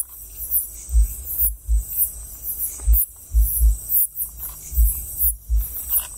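A chorus of night insects chirping high and fast in a pulsing rhythm, over repeated low rumbling thumps on the microphone.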